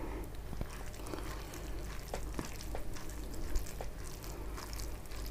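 Fingers mixing rice with curry gravy on a steel plate: faint wet squishing with scattered small soft clicks.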